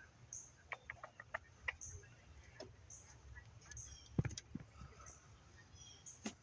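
Quiet clicks and taps of hands working a coolant hose and its plastic retaining clip in an engine bay, with one duller knock about four seconds in.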